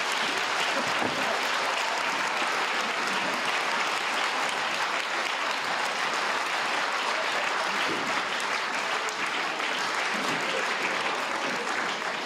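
Theatre audience applauding steadily: dense, even clapping from a full house at the curtain call.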